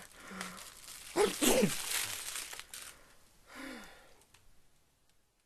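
A man's wordless vocal outbursts, loudest as two sharp bursts about a second and a half in, over crinkling and rustling. Everything fades away toward the end.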